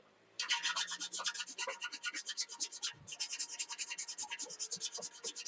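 Fuel tank being sanded by hand: quick, scratchy back-and-forth strokes that start about half a second in and pause briefly near the middle.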